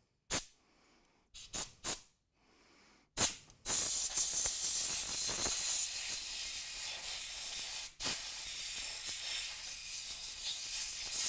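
Compressed-air blow gun blowing out holes on the engine: a few short blasts of hissing air, then one long continuous blast with a brief break about eight seconds in.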